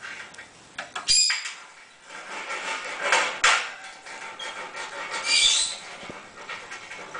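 An African grey parrot moving about and picking at things on the metal top of its cage: intermittent clattering and scraping, with two sharper high-pitched sounds, about a second in and past five seconds in.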